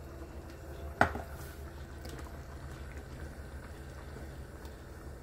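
A pan of sauce simmering on the stove over a steady low hum. A single sharp knock about a second in.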